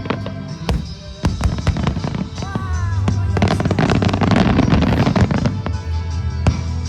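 Aerial fireworks bursting over show music played through loudspeakers: sharp bangs and pops throughout, with a dense stretch of crackling about three and a half seconds in that lasts some two seconds.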